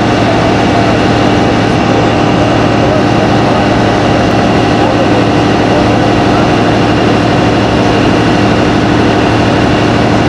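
Vehicle engine idling with a steady, even hum, with faint voices in the background.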